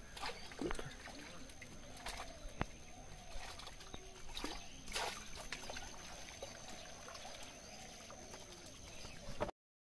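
Water trickling and sloshing around a net fish trap in floodwater, with scattered short splashes and knocks as hands work in the water and net. The sound cuts off abruptly near the end.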